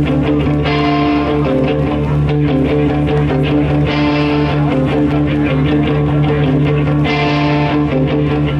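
Live instrumental fuzz psychedelic rock: a band of electric guitars, bass guitar and drums playing loudly through a stage PA, heard from the audience. Sustained guitar notes ride over a steady bass line and drums, with brighter strummed guitar swells coming back about every three seconds.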